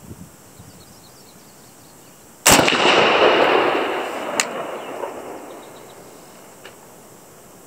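A single shot from a PTR-91 semi-automatic rifle in .308 Winchester, a sharp crack that echoes away for about three seconds, with a short sharp click about two seconds after the shot.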